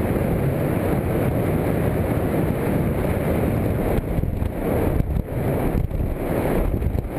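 Wind rushing and buffeting over the microphone of a skydiving camera during a tandem descent. It is a steady, dense rush that turns gusty with dips and swells from about four seconds in.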